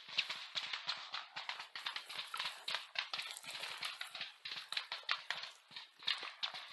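Dense, irregular crunching and rustling of dry leaves and undergrowth, many sharp crackles a second, from a soldier moving over the ground.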